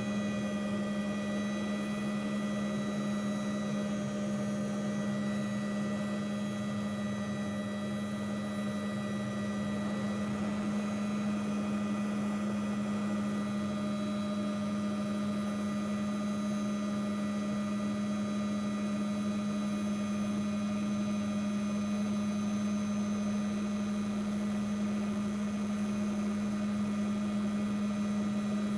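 Helicopter in flight heard from inside its cabin: a steady drone of engine and rotor, a strong low hum with several higher whining tones over it, unchanging throughout.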